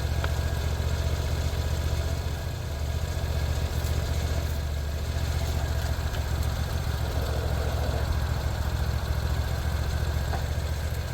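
Sawmill engine running steadily with a low, even hum.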